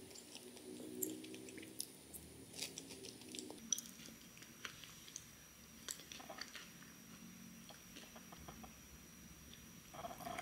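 Close-up eating sounds: soft chewing and biting, with scattered small clicks and crumbly crackles as a scone is handled and broken. Near the end there is a slightly louder crackly moment.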